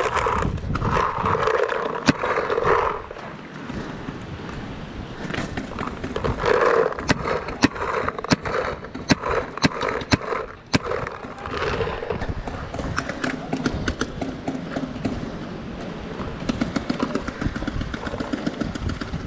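Paintball markers firing: sharp, irregular pops scattered throughout, with a quick run of shots about seven to eleven seconds in.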